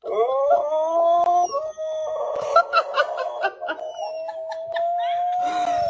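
Dog howling: one long call that rises at the start and then holds nearly level. A person laughs over it from about halfway through.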